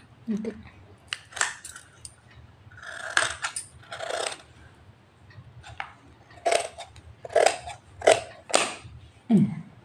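Large tailor's shears cutting through folded blouse fabric to trim the sleeves: about a dozen short, separate snips at an uneven pace.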